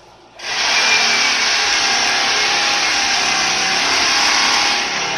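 A corded electric tool switches on about half a second in and runs steadily with a loud, even whir.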